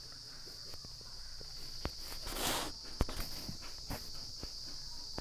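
Steady high-pitched chirring of crickets in the background, with scattered faint clicks and taps and a brief rustle about halfway through.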